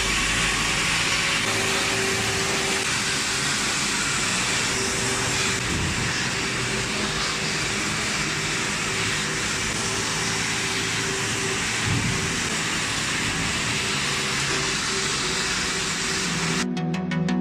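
Dustprom PP 220/52 industrial vacuum cleaner running steadily: an even hiss with a constant hum, stopping near the end.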